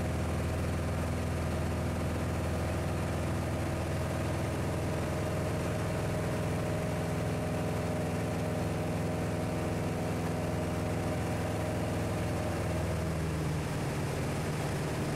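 Piper Archer's four-cylinder Lycoming engine and propeller droning steadily in flight, heard from inside the cabin. About 13 seconds in, the pitch steps down and the level dips slightly as the throttle is pulled back.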